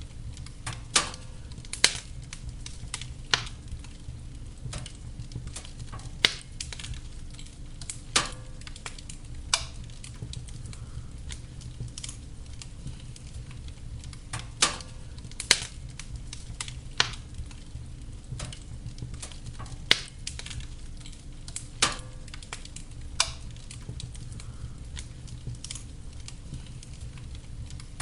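Wood fire in a fireplace crackling, with about a dozen sharp pops at irregular intervals and fainter crackles between them, over a steady low rumble.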